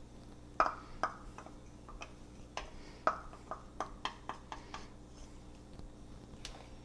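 About a dozen light, irregular clicks and taps of kitchen utensils against cookware, over a faint steady hum.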